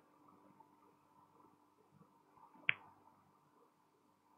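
Very quiet pause with a faint steady hum and a single short, sharp click about two-thirds of the way through.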